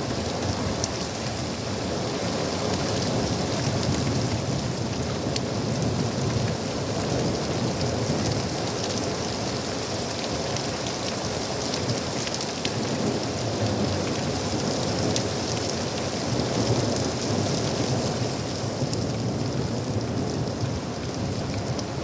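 Steady rain falling, with scattered small drop ticks over a constant rush.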